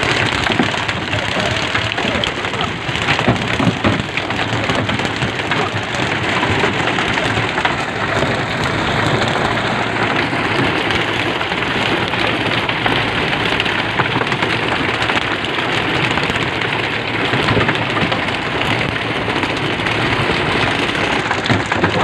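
Steady, rain-like hiss of splashing and rushing seawater around a pole-and-line fishing boat.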